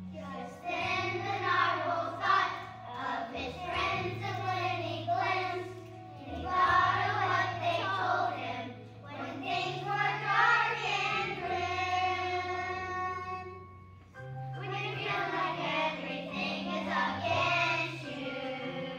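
A group of young children singing a song together over an instrumental accompaniment with sustained bass notes, in phrases a few seconds long; the singing drops out briefly about three-quarters through before the next phrase.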